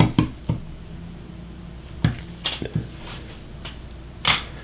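Small clicks and taps of a watch crystal press and case being handled as a domed sapphire crystal is loaded and friction pressed into the watch case, with a sharper click about four seconds in.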